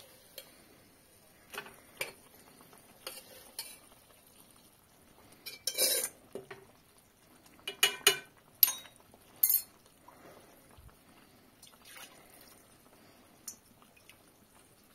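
A small pan and a spoon knocking and scraping against a large steel cooking pot as fried brinjal is tipped and scraped out into yogurt. Irregular clinks, busiest around the middle, then only a few faint ones near the end.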